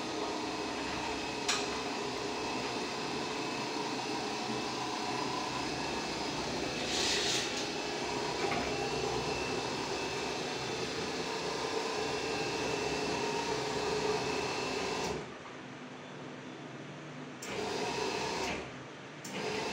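Homemade stairlift's electric drive running steadily as the chair travels down the stair rail, a machine hum with a whine. It stops about 15 seconds in, then runs twice more briefly as the chair is brought to the bottom.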